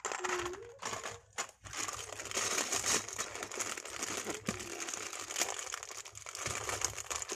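Crinkling plastic as sealed bags of LEGO parts are handled and squeezed. There are a few sharp clicks near the start, and the crinkling grows fuller and louder after about a second and a half.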